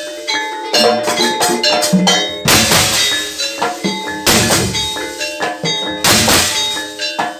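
Gamelan ensemble playing jaranan accompaniment: ringing struck-metal tones over drum strokes, with a loud crash about every two seconds.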